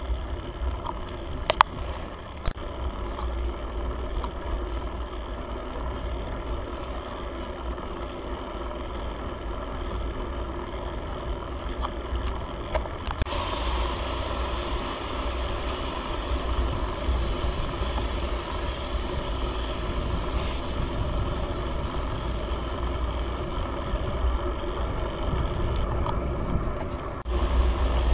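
A motor vehicle's engine running steadily under load as it climbs, with road and wind noise. The hiss of road noise grows louder about halfway through.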